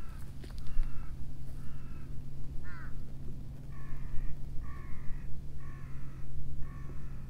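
A crow cawing again and again: a few short caws, then four longer caws just under a second apart. A steady low hum and low rumbling noise run underneath.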